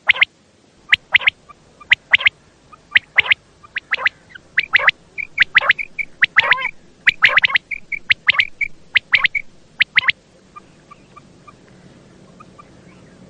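Quail calling: sharp, quick notes in pairs and threes, repeated about once a second for roughly ten seconds, then only faint short chirps near the end.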